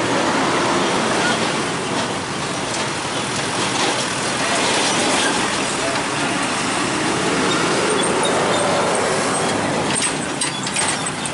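Heavy diesel trucks driving slowly over a railway level crossing one after another, engines running and tyres rolling, with motorcycles passing alongside. A few sharp knocks near the end.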